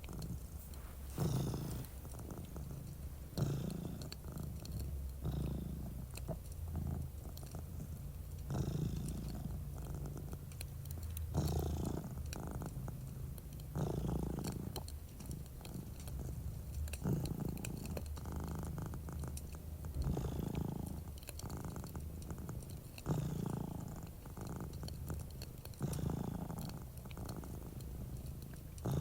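A cat purring close to the microphone, the purr swelling and easing with each breath about every three seconds. Small crackles of a fireplace run underneath.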